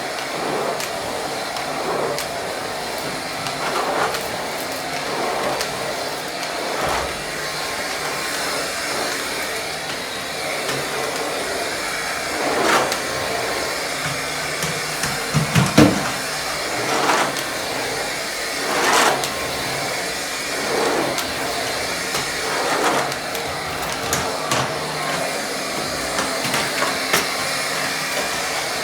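Vacuum cleaner running steadily, its rushing sound swelling every second or two. A few low knocks come about halfway through.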